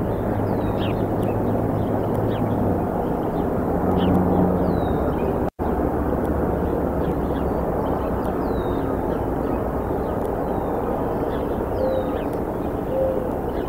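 Outdoor field microphone picking up the steady low drone of a distant engine, with small birds giving short, high, downward-sliding chirps now and then. The sound cuts out for an instant about five and a half seconds in.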